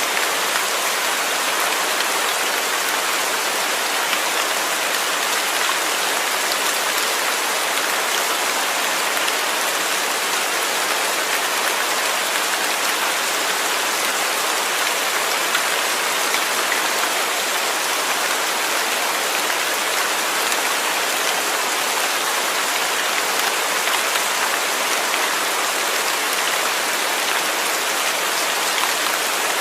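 Steady rain falling on a surface, an even, unbroken hiss of many drops with no thunder or other sounds.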